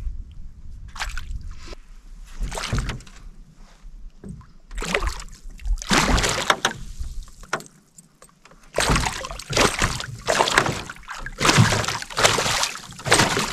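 Water splashing and sloshing around a canoe on choppy water. The rushes come scattered at first, then about one a second in the second half.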